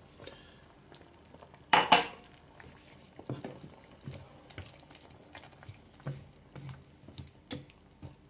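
Wooden spatula stirring a stew of potatoes and green beans in a frying pan, knocking and scraping against the pan in irregular light taps. About two seconds in, two louder knocks close together.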